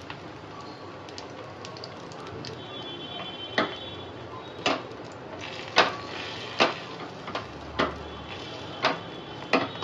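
Thin crepe batter frying in a little oil in a nonstick frying pan over a gas burner, with a low steady sizzle. From a few seconds in, a sharp crackle or knock comes about once a second.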